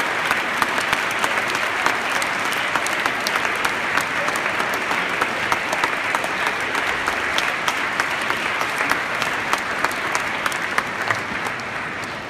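Large audience applauding, a dense patter of many hands clapping that starts to die away near the end.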